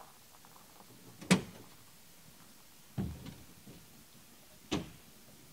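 Three separate clunks at the back of a pickup truck camper, with doors, the tailgate and gear being handled. The first, about a second in, is the loudest, and the others come roughly a second and a half apart.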